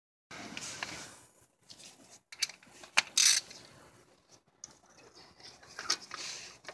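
Hand ratchet clicking in short spells, with a few sharp metal knocks of tools in an engine bay; the loudest knock comes about three seconds in.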